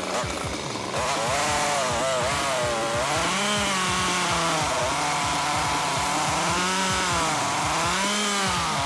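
Stihl chainsaw cutting through a log, its engine note wavering up and down as the chain bites and eases in the wood. It gets louder about a second in.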